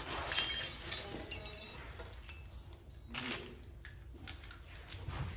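Small metal parts of a door lock set clicking and rattling as they are handled, with a single knock about three seconds in.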